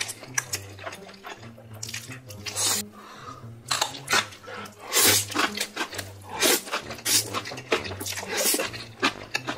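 Jjajang ramen noodles being slurped in big mouthfuls, in a run of loud, irregular slurps with wet chewing between them.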